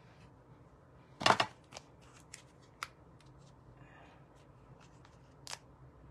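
Paper and craft tools handled on a work surface: a short clatter of clicks and paper rustle about a second in, the loudest moment, then a few scattered light clicks and taps, with one more near the end.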